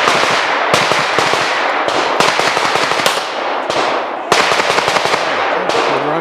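Pistol shots fired in irregular succession, several sharp cracks over a loud, continuous rushing noise.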